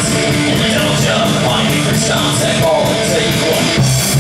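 Live rock band playing electric guitar, bass guitar and drums, with a steady cymbal beat of about four strikes a second. Near the end the bass settles into a long, low held note.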